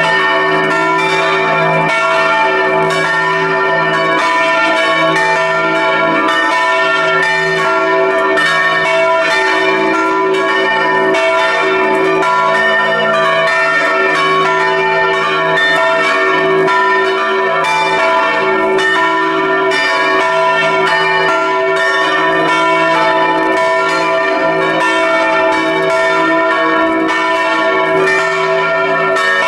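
Several church bells swinging and ringing together in a full peal, heard up close inside the belfry: clapper strikes follow one another densely, their ringing tones overlapping steadily.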